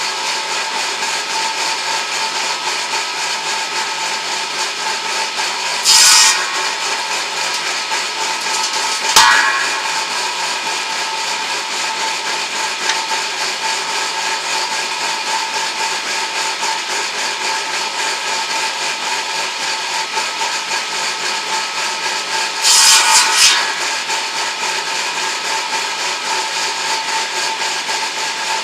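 Homemade edging saw's circular blade running steadily with an even whine. It grows briefly louder twice, about six seconds in and for about a second around 23 seconds in, and gives a sharp knock about nine seconds in.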